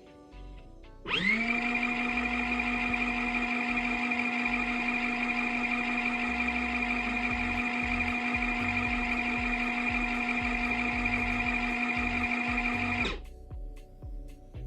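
Small electric motor of a portable washing machine spinning towels in its spin basket. It starts about a second in with a brief rising whine, runs at a steady whining hum, and cuts off shortly before the end, as the machine pauses before turning the other way.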